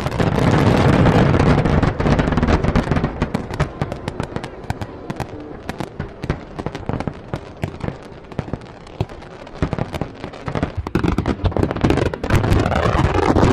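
Aerial fireworks display: shells bursting with deep booms over a dense, continuous crackle. The booms are heaviest in the first two seconds and build again from about eleven seconds in.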